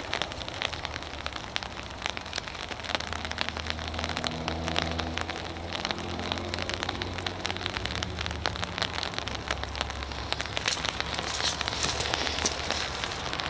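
Dense fine pattering, like rain falling on surfaces. A low engine-like hum comes in about three seconds in and fades out a few seconds before the end.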